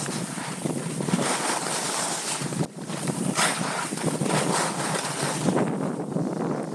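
Skis sliding and scraping over packed snow, with wind buffeting the microphone. The noise drops off briefly about two and a half seconds in.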